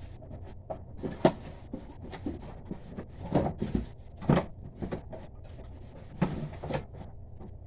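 Cardboard box and plastic packaging being handled: irregular knocks, clicks and rustles as parts are shifted and pulled out, with the sharpest knock about a second in and small clusters around the middle.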